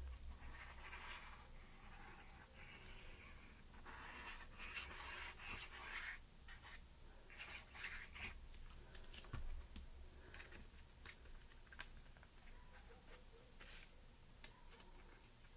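Faint scratching of a precision glue bottle's fine tip drawn across cardstock as glue is squeezed out in wavy lines, in a few stretches of a second or two, with a few small paper ticks.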